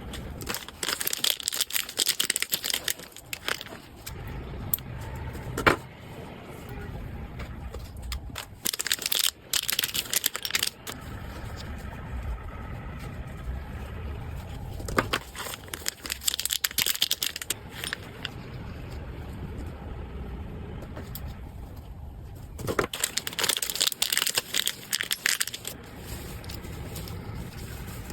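Packaging being handled, crinkling and rustling in four bursts of a few seconds each, with a low steady rumble between them.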